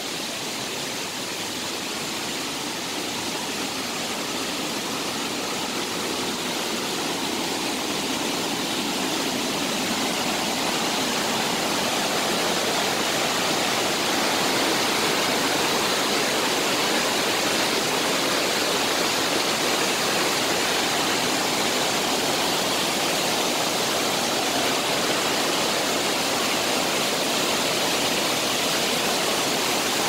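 Steady rushing of water from a waterfall and the white-water rapids below it. It grows louder over the first ten seconds or so, then holds steady.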